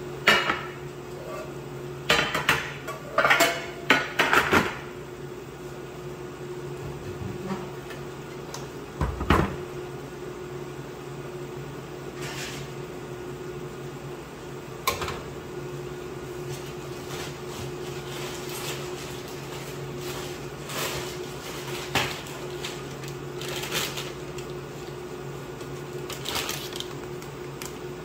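Baking pans, a sheet tray and a kitchen scale knocking and clattering as they are set down on a counter: a quick run of clatters a few seconds in, a heavier knock a few seconds later, then single knocks now and then. A steady low hum runs underneath.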